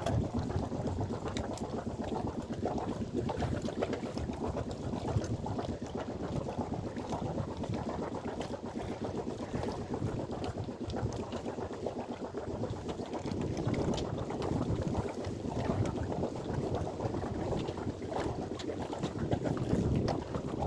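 Water rushing and washing along a sailboat's hull as it sails, a steady noisy rush with occasional faint ticks.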